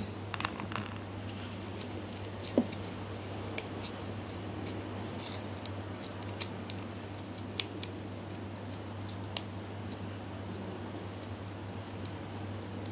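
Slime being mixed by hand, giving scattered sticky clicks and pops, the loudest about two and a half seconds in, over a steady low hum.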